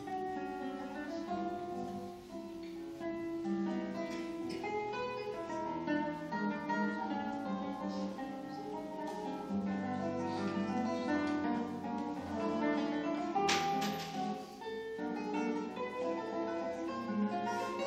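Solo nylon-string classical guitar played fingerstyle, a continuous flow of plucked notes, with one sharp, bright strike about thirteen and a half seconds in.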